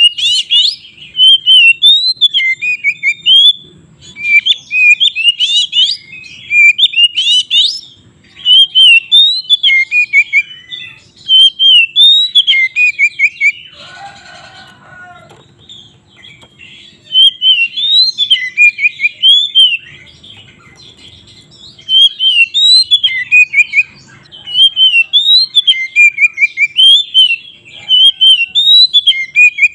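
Oriental magpie-robin singing loud, fast, varied whistled phrases in bursts, with short pauses about halfway through; a brief rougher call comes about fourteen seconds in.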